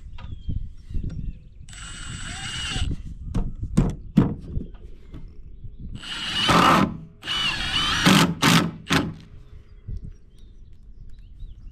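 Cordless impact driver driving screws into wooden framing boards. There is one short run about two seconds in, then two longer runs between six and eight seconds, with a few sharp clicks in between.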